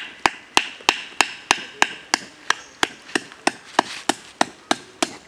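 Steady wooden knocking, about three blows a second, of a forked stick being pounded into the ground as a support for a spit over a campfire.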